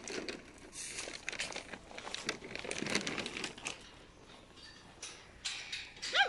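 Irregular crinkling and rustling for the first few seconds, then quieter; a dog starts barking right at the end.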